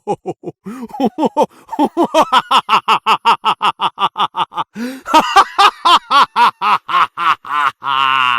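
A voice laughing in a rapid, unbroken cackle of short pitched 'ha' pulses, about six a second, climbing higher partway through and ending in a long wavering held note near the end.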